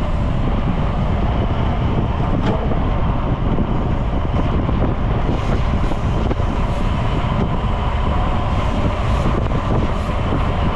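Steady wind buffeting the microphone of a camera on a moving road bicycle, a loud, even rush with a heavy low rumble.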